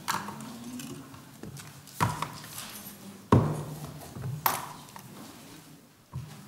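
Five scattered knocks, each with a short ring, the loudest about halfway through, with faint low murmuring between them.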